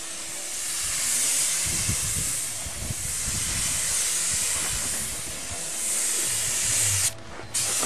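Compressed-air paint spray gun hissing as it sprays flat black paint onto a pickup's body, the hiss swelling and easing with each pass and stopping for a moment near the end.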